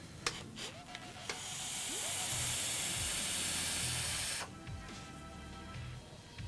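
Rebuildable vape atomizer with a Lava Monkey DoubleBack coil fired at about 90 watts with the airflow wide open: a steady hiss of the long draw through the hot coil for about three seconds, stopping abruptly.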